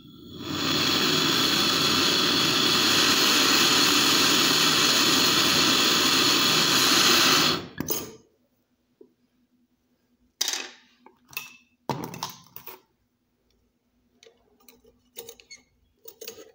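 Handheld gas torch flame hissing steadily for about seven seconds, the sound of heating a copper pipe joint for brazing, then cutting off suddenly. A few metal clinks and knocks follow.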